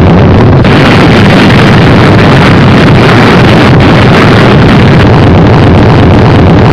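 Explosion rumble boosted to full volume and heavily distorted, a steady clipped wall of noise that barely changes.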